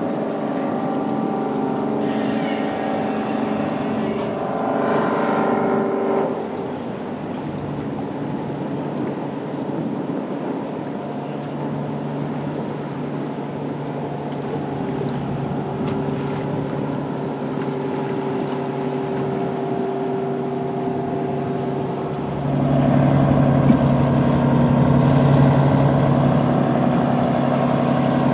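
Diesel engines of passing river cargo barges running with a steady drone. The engine sound shifts about a quarter of the way through and grows louder near the end as another barge comes close.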